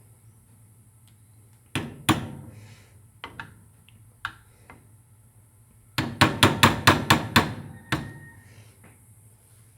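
A metal utensil knocking against a cooking pan: a few separate knocks, then a quick run of about eight clanks, roughly six a second, a little past halfway, and one more after it.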